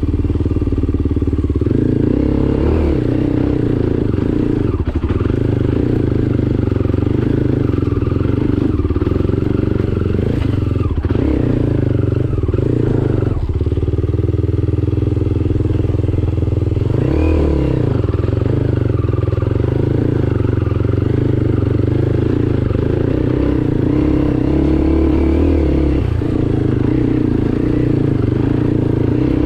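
Enduro dirt-bike engine running steadily under way, its revs dipping and picking up again briefly several times.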